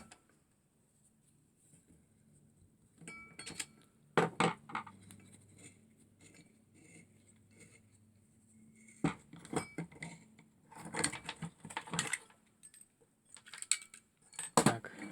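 Metal tools knocking and clinking on the Zelmer 2750 vacuum cleaner's motor in several clusters of sharp taps, as a part is knocked out to free the armature.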